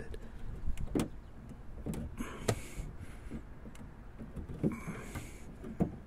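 Scattered clicks and knocks from a hand working the door handle and latch linkage inside a Jaguar X-Type's door shell, with two brief rustles about two and five seconds in.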